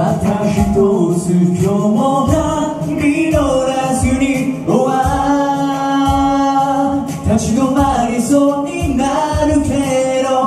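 Male voices singing a pop song live over musical accompaniment with a steady beat, holding one long note from about five to seven seconds in.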